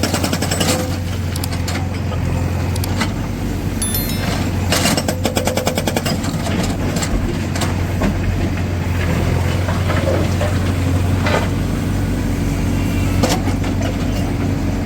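Diesel engine of a Tata Hitachi Shinrai backhoe loader running steadily, with scattered metallic knocks and a quick rattling run of blows about five seconds in.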